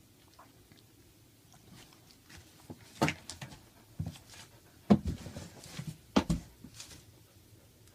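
A few sharp knocks and short rustles, scattered between about three and six and a half seconds in, as the puppies stir in their bed of blanket and shredded newspaper.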